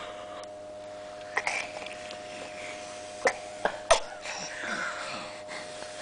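Breath blown in short airy puffs at a baby's face, with a few sharp clicks around the middle.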